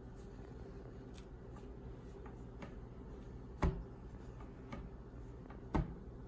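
Light scattered clicks and two louder knocks about two seconds apart, as dough is worked out of a mixing bowl.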